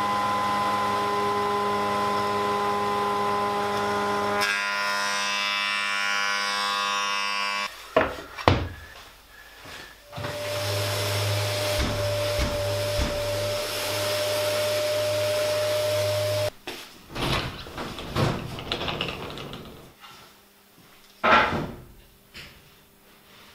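A benchtop thickness planer runs steadily, and its sound shifts about four and a half seconds in as a board goes through, until it stops abruptly. After a few knocks, a random orbital sander runs for about six seconds and cuts off. Then come handling knocks and a short burst from a cordless drill driving a screw.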